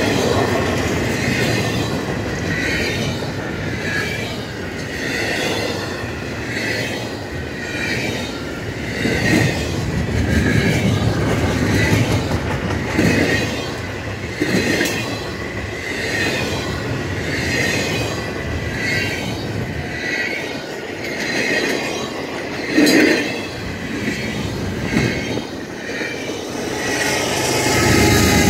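Intermodal freight cars rolling past on steel rails, with a regular clack and squeal of wheel sets coming a little slower than once a second. A steady tone comes in near the end.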